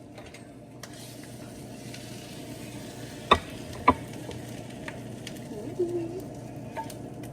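Omelette sizzling in a frying pan, with two sharp knocks of a utensil against the pan about half a second apart, just past three seconds in.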